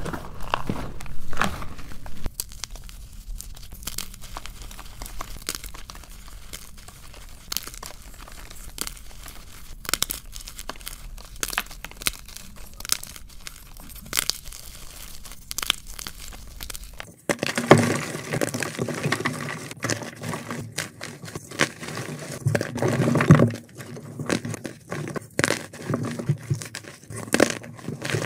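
Gym chalk crushed and crumbled in bare hands: dry crackling and crunching of breaking chalk pieces and powder. The crunching turns denser and louder about two thirds of the way in.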